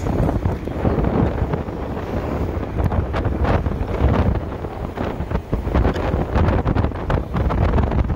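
Wind buffeting the microphone of a rider on a moving electric motorcycle: a loud, uneven rumble with scattered crackles.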